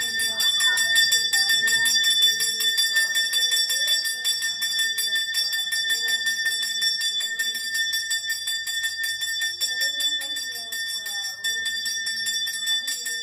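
Brass puja hand bell rung continuously and rapidly, its clapper striking many times a second over a steady high ringing tone.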